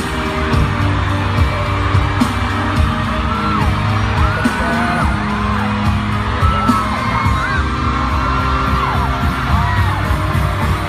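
Pop music with a steady beat and singing, with voices whooping and calling out over it.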